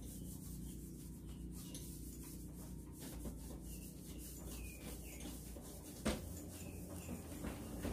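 Cloth rubbing over a glass cabinet door, wiping off a coat of dried powder paste to polish the glass. There is one sharp knock about six seconds in.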